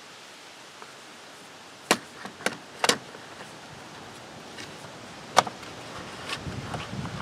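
Sharp clicks and knocks of plastic on plastic as the recoil starter pulley is seated in the leaf blower's starter housing: three in quick succession about two seconds in, another a few seconds later, then fainter ones. Wind rumble on the microphone builds near the end.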